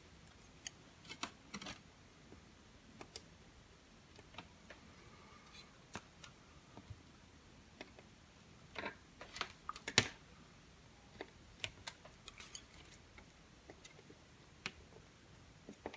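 Scattered small clicks and taps of metal tweezers and a soldering-iron tip against an LED circuit board and the desk while a surface-mount LED is soldered in place. The taps come irregularly, bunching about nine to ten seconds in, where the loudest one falls.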